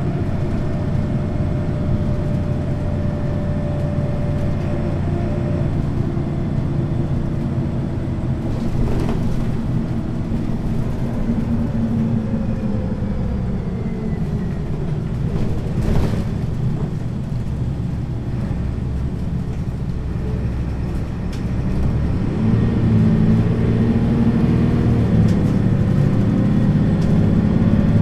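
Cabin sound of a 1999 Neoplan N 4411 Centroliner midibus on the move: the diesel engine and Voith automatic gearbox run steadily. The engine note falls through the middle, a single knock comes about sixteen seconds in, and from about twenty-two seconds the engine grows louder and its note rises again.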